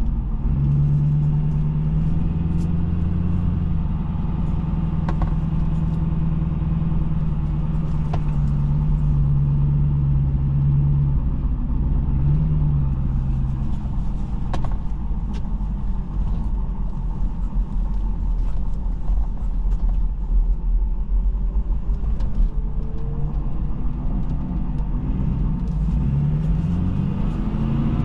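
Pickup truck engine running while the truck drives, a steady low rumble with a hum for the first ten seconds or so. Near the end the pitch swings up and down as the truck speeds up and slows.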